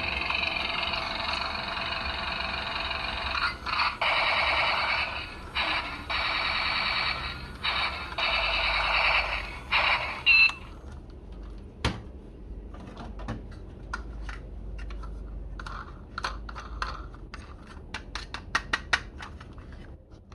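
Toy ambulance's electronic siren sounding through its small speaker, its pitch wavering, with a few brief breaks; it cuts off about ten seconds in. After that, a run of light clicks and taps, sparse at first and coming quicker near the end.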